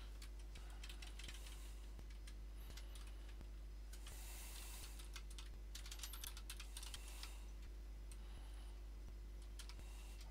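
Typing on a computer keyboard in short runs of keystrokes with brief pauses between them, faint, over a steady low hum.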